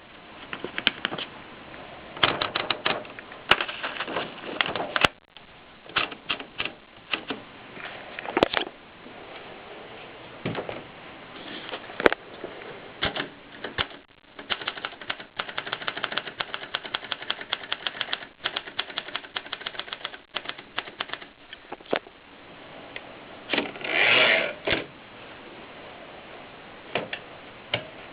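Keys of a Groma Kolibri portable manual typewriter striking in irregular runs of rapid keystrokes, with short pauses between them. Near the end comes a longer rasping sound of about a second.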